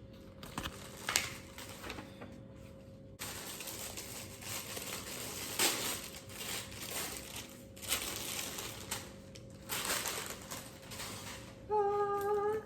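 Packaging crinkling and rustling as a shoulder bag is unwrapped by hand. A few light clicks come first, then about three seconds in a steady, busy crinkle starts and goes on with louder swells.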